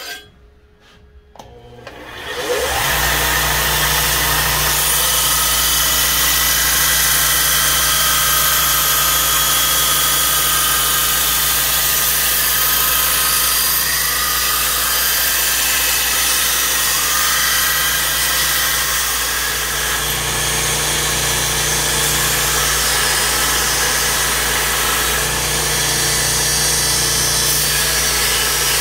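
A few clicks, then a belt grinder's motor starts up about two seconds in, rising in pitch as it comes up to speed. It then runs steadily with a steady hum, while the edge of a square, cleaver-style steel kitchen knife blade is ground against the abrasive belt, a continuous grinding hiss.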